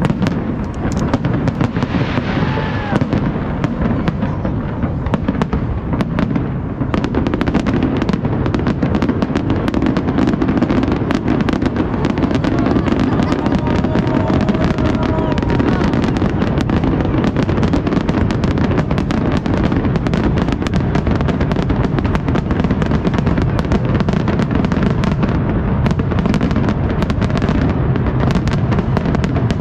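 Aerial firework shells bursting in a continuous rapid barrage of bangs, growing denser and a little louder after about seven seconds.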